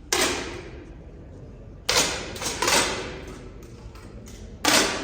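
Air rifles firing on a competition range: about five sharp shots at irregular intervals from different shooters, two of them close together in the middle, each followed by a short echo from the hall.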